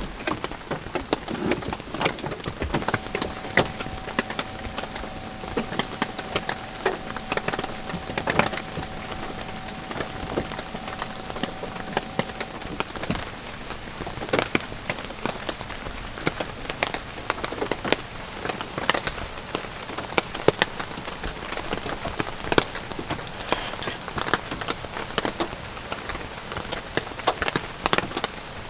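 Steady rain falling, with many separate drops tapping sharply on a surface.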